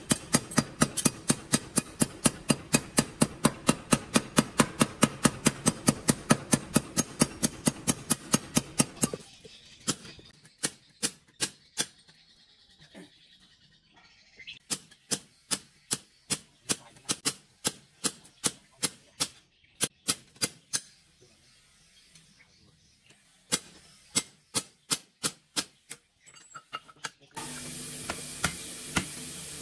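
A mechanical power hammer pounds a hot steel cleaver blank, forged from a twisted steel bar, in a fast even run of about five blows a second. It stops after about nine seconds. Runs of hand-hammer blows on the blade over an anvil follow, about two to three a second with pauses. Near the end a bench grinder starts and runs with a steady hum and hiss.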